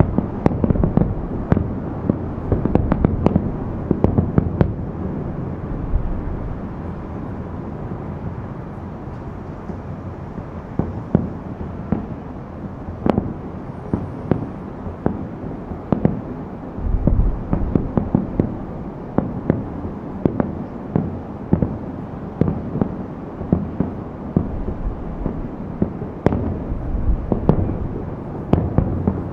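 Aerial firework shells bursting, heard from about 2.5 km away: a continual run of bangs over a low rumble, dense at first, thinning out in the middle, then coming thick again toward the end.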